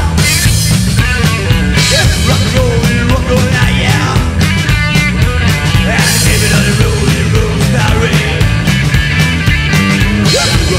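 Loud garage-rockabilly band playing live: drums, bass and electric guitar driving a fast rock number.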